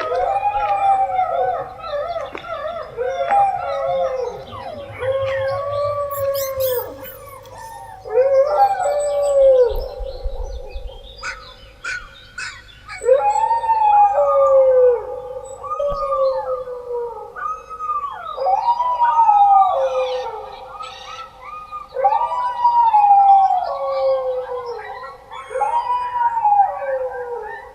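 Several dogs howling together: long, overlapping howls that rise and then fall in pitch. In the second half the howls come about every two seconds.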